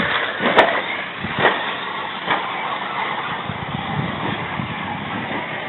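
Remote-control cars running around a dirt track: a steady noisy whir with a few sharp knocks in the first couple of seconds.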